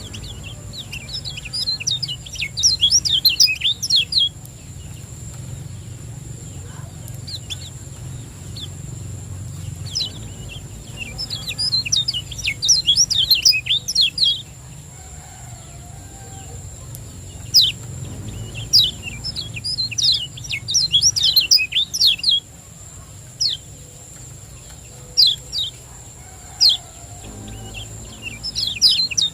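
Kecial kuning white-eye calling in rapid bursts of sharp, high, downward-sweeping 'ciak' chirps, several clusters of them with short pauses between. A steady low hum and a thin high whine run underneath.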